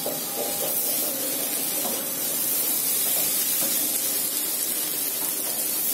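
Red lentil, onion and tomato mixture sizzling in a pan with a steady hiss while a spatula stirs it.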